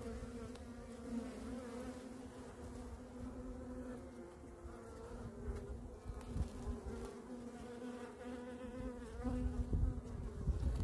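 Steady hum of a honeybee colony buzzing over the exposed frames of an open hive. A few low thumps come in near the end.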